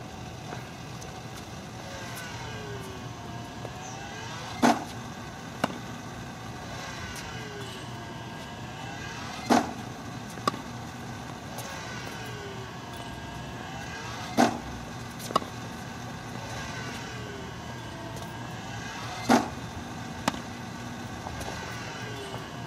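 Tennis balls being volleyed in a steady drill: four times, about five seconds apart, a loud pop as a ball is fed, then the quieter crack of the racquet's forehand volley about a second later, over a steady background hum.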